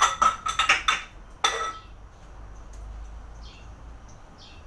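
Kitchenware clinking and knocking at a stove: a quick run of sharp metallic clinks with a short ring in the first second, and one more knock about a second and a half in. After that only a faint low hum.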